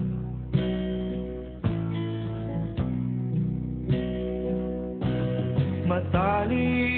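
Background music: an acoustic guitar strums a chord about once a second, in an instrumental gap between sung lines of a Tagalog song.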